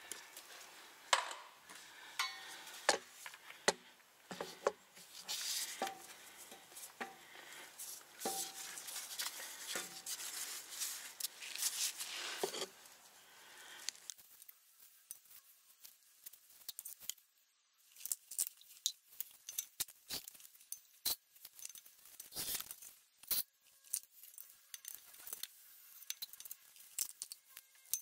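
Hands working at a Porsche Macan transfer case fill hole: scattered sharp clicks and small metallic clinks from handling a fluid bottle and tools. A rustling noise runs under the clicks for about the first half, then only the clicks remain.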